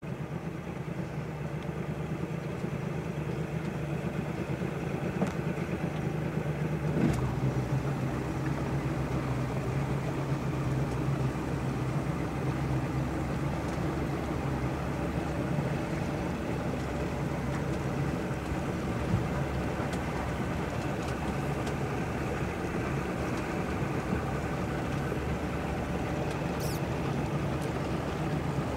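A boat motor running at a steady low drone, unchanging in pitch and level.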